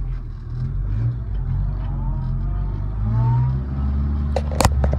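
1973 Toyota Hilux's 2.0 L 18R four-cylinder engine running in the cab as the truck is put in reverse and starts backing up, its pitch rising a little about two seconds in. A sharp click near the end.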